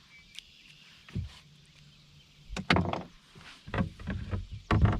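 Several knocks and clunks of gear being handled in a small fishing boat, one about a second in and a cluster in the last two seconds.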